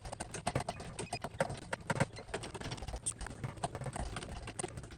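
Performance Tool W54232 lever-action bucket pump being worked by hand to pump hydraulic oil from a 5-gallon pail, its lever and fittings clicking and clacking in quick, irregular taps.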